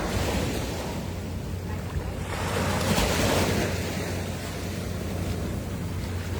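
Ocean surf washing onto the beach, one wave swelling louder and breaking about two to three seconds in, with wind rumbling on the microphone.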